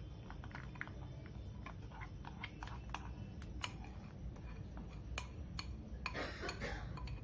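Metal spoon clicking and scraping against a ceramic bowl as sticky honey-coated walnuts are scraped out onto a plate: scattered light clicks, with a longer, busier scrape about six seconds in.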